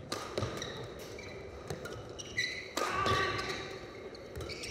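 Badminton doubles rally: several sharp racket strikes on the shuttlecock, spaced irregularly, with short high squeaks of players' shoes on the court in the middle.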